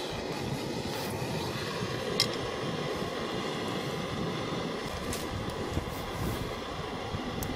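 Kovea canister backpacking stove burning with a steady roar from the gas burner. About two seconds in there is a single sharp metal clink as a frypan is set down on the stove's pot supports.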